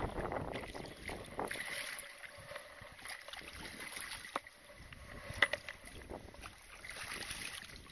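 Water splashing and sloshing at the bank, with wind on the microphone and a few sharp clicks, the loudest about five and a half seconds in.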